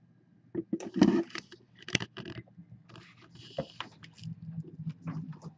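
Handling noise from a camera being picked up and turned: irregular knocks, scrapes and rustles, loudest about a second in.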